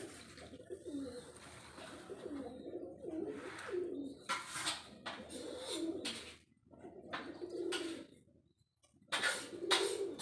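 Pigeons cooing over and over in low, wavering calls, broken by several short bursts of rustling noise, the loudest near the end.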